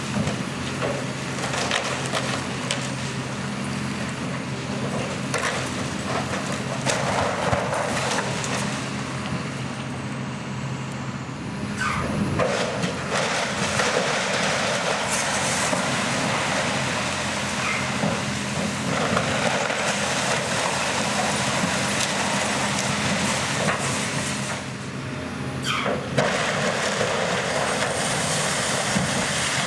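Heavy demolition machine engine running steadily under load, with repeated crunching and sharp cracks of structure breaking apart as the ride building is torn down.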